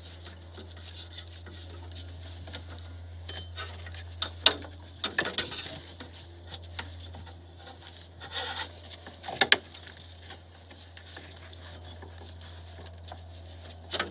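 Ribbed rubber drive belts being worked off the pulleys of a Mercedes M112 V6 engine by hand: scattered rubbing and rustling with light clicks and knocks, the sharpest about four and a half and nine and a half seconds in, over a steady low hum.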